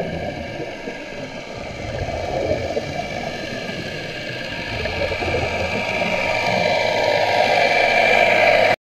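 Motorboat engine and propeller heard underwater: a steady droning whine that grows louder as the boat approaches overhead, then cuts off suddenly near the end.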